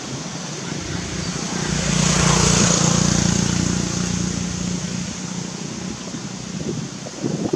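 An engine passing by: a low drone that swells over the first two or three seconds and then slowly fades, over a steady hiss.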